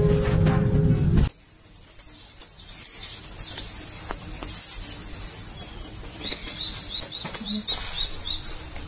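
Background music that cuts off about a second in. Then wild birds calling in woodland: an occasional thin high call, and near the end a quick run of short repeated chirps, about four a second.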